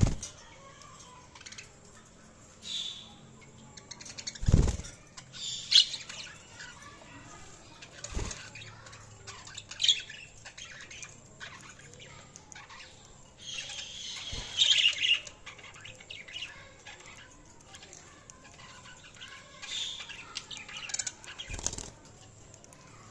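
Budgerigars chirping in short, scattered bursts, with a busier stretch of chatter about fourteen seconds in. A few soft thumps come in between.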